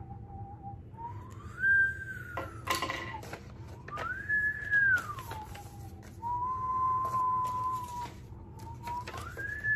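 A woman whistling a slow tune through pursed lips: one clear note at a time, held, then gliding up or down to the next. There is a brief sharp noise about three seconds in.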